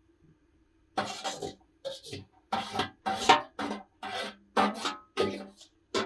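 A plucked string instrument strummed in sharp, repeated strokes, roughly two a second, starting about a second in.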